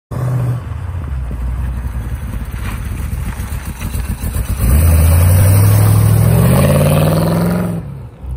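A 1931 Chevrolet hot rod's engine running as the car rolls by, then revving hard about halfway through, its pitch climbing steadily as it accelerates away, before easing off near the end.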